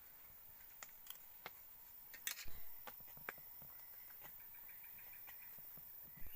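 Scattered light clicks and taps, with a brief cluster about two seconds in, over faint steady forest ambience with a short run of rapid chirps past the middle.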